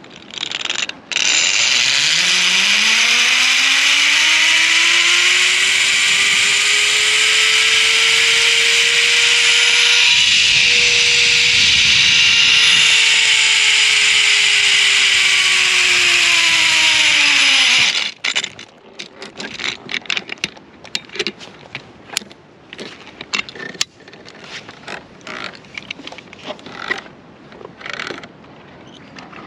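Zip-line trolley pulleys running along a steel cable: a loud whirring whine that climbs in pitch as the rider picks up speed, peaks about ten seconds in, and falls again as the trolley slows. It stops abruptly about 18 seconds in, followed by scattered metallic clicks and knocks of the harness hooks and carabiners at the landing platform.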